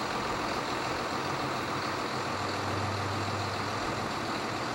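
Steady road-vehicle noise with a low engine hum that swells about two seconds in and fades again near the end.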